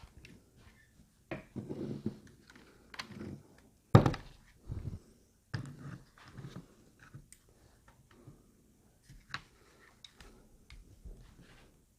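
Hi-Point 995 carbine parts being handled during reassembly: a string of irregular knocks and clicks with handling rustle between them, the loudest knock about four seconds in.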